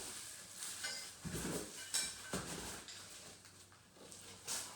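Handling noises from unpacking a boxed miter saw: scattered rustling, rubbing and light knocks of packaging and cardboard, with a brief high squeak about a second in.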